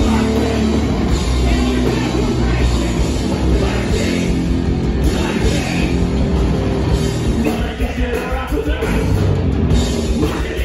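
Hardcore punk band playing live and loud through a club PA: distorted electric guitar, bass guitar and drum kit, dipping slightly in level for a moment near the end.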